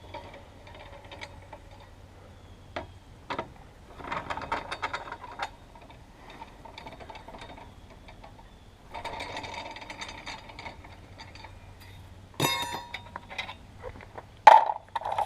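Hand ratchet wrench clicking in two short runs, working lug nuts during a tire rotation. A few single clicks come between the runs, and there are sharp metal clanks near the end.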